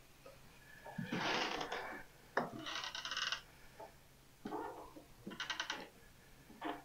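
Wooden boards creaking and knocking under footsteps, with two short runs of rapid squeaky creaks about three and five and a half seconds in.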